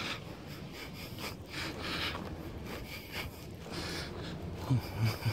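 Rhythmic scuffing and rubbing of someone walking with a handheld camera, about two strokes a second: footsteps on pavement and clothing brushing the microphone. A couple of short low thumps near the end.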